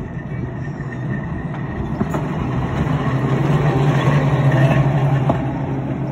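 Sheffield Corporation Tramways electric tram No. 264 passing close by on its rails: wheels rumbling on the track under a steady low hum, with a few clicks. It is loudest as it goes by, about four to five seconds in.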